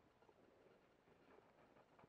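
Near silence: faint, even background hiss with no distinct sound.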